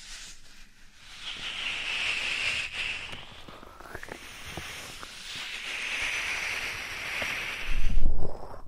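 ASMR sounds made close to a microphone: a soft rubbing hiss that swells twice, with small crackles, then a loud low rumble near the end as something presses against the mic.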